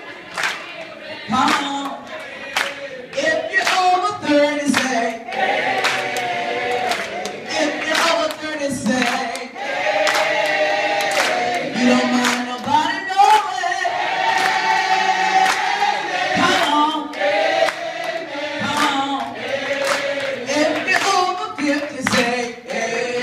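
A roomful of people singing together, clapping along on the beat about twice a second.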